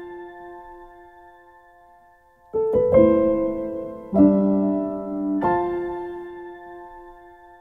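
Background piano music: a held chord fading away, then a few slow chords struck about two and a half seconds in, the last one left to ring and fade out.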